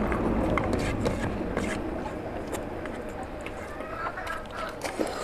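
A hand mixing rice with oily mutton curry on a plate, then a mouthful being eaten, heard as scattered small clicks and smacks over a steady low background hum.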